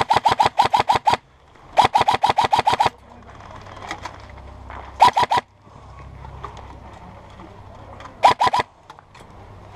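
Airsoft electric rifle firing on full auto at about eight shots a second: two bursts of about a second each, then two short bursts of three or four shots, each shot a sharp click with a gearbox buzz.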